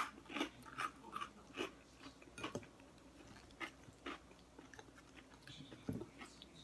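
Close-up chewing of salad, with irregular soft crunches and clicks that come thick at first and thin out, mixed with a plastic fork clicking and scraping in a glass salad bowl.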